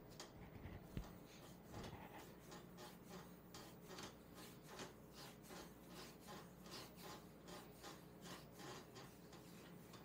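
Hands rubbing oiled skin in quick massage strokes on a thigh: a faint, even run of soft swishes, about two or three a second. A single soft knock about a second in.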